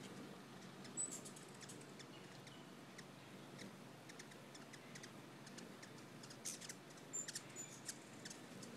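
Hummingbirds giving faint, high-pitched chips and ticks, scattered and sporadic, with a small flurry of them near the end, over a soft steady outdoor background.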